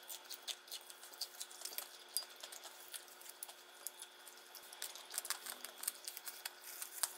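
Close-up eating sounds: fried chicken being chewed, a faint string of small irregular crunches and crackles, with a sharper click near the end.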